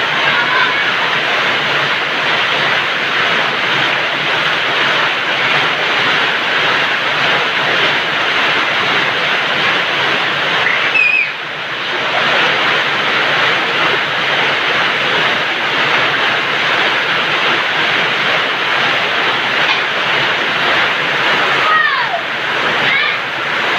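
Heavy rain pouring down steadily, dipping briefly about halfway through, with a few short high cries.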